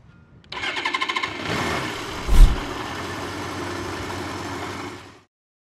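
Motorcycle engine sound effect: a quick run of firing pulses, a heavy low thump about two seconds in, then the engine running steadily until it cuts off sharply.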